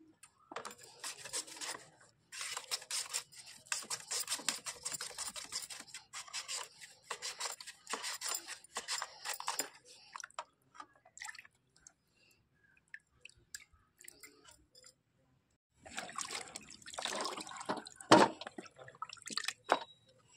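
Raw potato being sliced on the slicing blade of a flat steel grater held over a tub of water, a run of rapid rasping strokes with the slices dropping into the water. Near the end, water splashing and one sharp knock.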